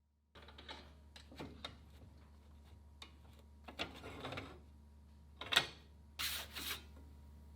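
Hand work on sheet steel: irregular scraping and rubbing strokes with a few sharp clicks, over a faint steady low hum.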